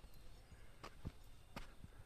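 Faint footsteps of a hiker on a mountain trail, several steps at an uneven walking pace.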